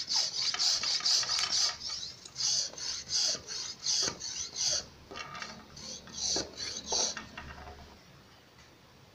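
Mini hand air pump being handled and pulled apart, its plastic and metal parts scraping and rubbing against each other as its hose is drawn out. A run of short, irregular rasping scrapes that stops about seven seconds in.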